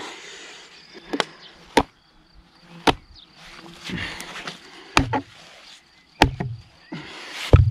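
Stainless Mora Companion HD knife being driven tip-first into a wooden log, by stabbing and then hammering with a brick: about six sharp knocks at uneven intervals.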